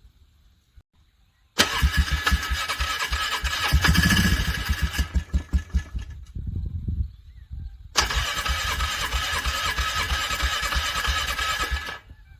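ATV engine being cranked over by its electric starter in the freezing cold, struggling and not starting: two cranking attempts of about three to four seconds each, the first beginning about a second and a half in and the second about eight seconds in, each starting and cutting off abruptly. After the first attempt the engine stumbles with a few irregular pulses before going quiet.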